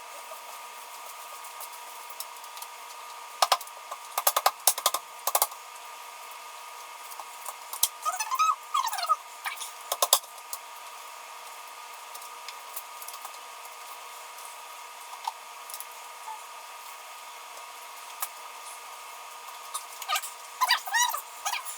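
Scattered clicks and knocks of motorcycle side panels being fitted, over a steady hum. About eight seconds in there is a short squeaky sound that rises and falls.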